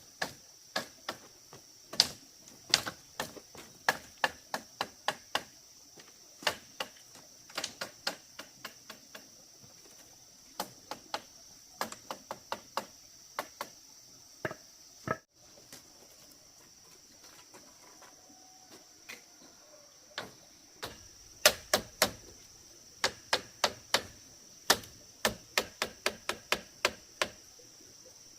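Repeated sharp chopping strikes of a hand tool on bamboo, irregular, often two or three a second, with short pauses, over a steady high-pitched hum.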